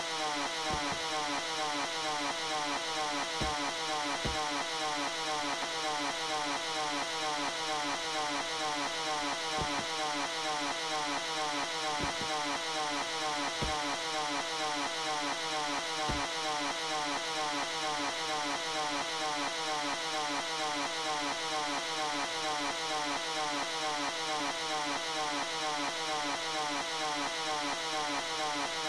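Sports-car engine sound effect held at high revs: a steady drone at one unchanging pitch, with a few faint low ticks.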